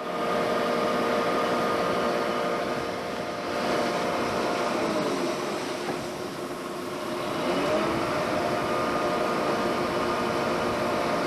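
Machinery running steadily: a hum of several steady tones over a loud hiss, with a couple of faint sliding pitch changes about halfway through.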